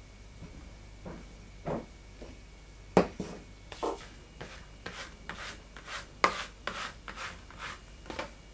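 Bread dough being rolled out into a long strip on a floured work surface: a series of soft rubbing, brushing strokes, a few at first and then about two a second, over a low steady hum.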